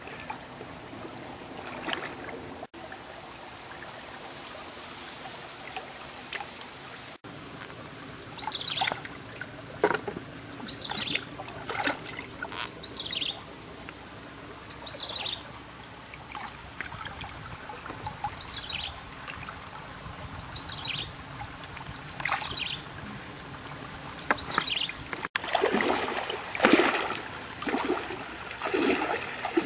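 Shallow stream water trickling and sloshing as hands grope along the muddy bottom, while a bird repeats a short call that falls in pitch, about once a second, through the middle. Near the end, louder splashing of legs wading through knee-deep water.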